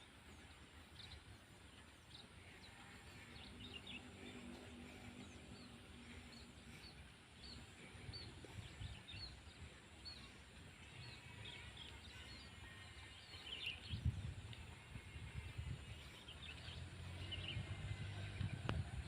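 Faint rice-field ambience: small birds chirping in short repeated calls over a low rumble. A low droning sound comes in a few seconds in and again near the end, with a brief louder low thump a little after the middle.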